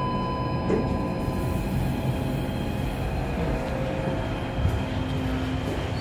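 Kone traction elevator heard from inside the car: a steady low rumble with several steady hum tones, and a short click about a second in.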